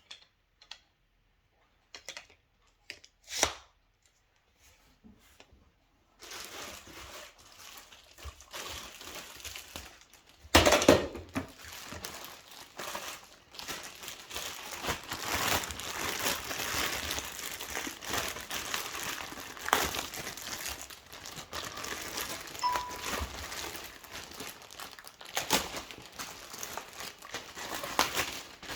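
Plastic packaging crinkling and tearing as a vacuum cleaner part is unwrapped. A few scattered clicks and knocks come first, then steady crinkling from about six seconds in, with a loud crackle about ten seconds in.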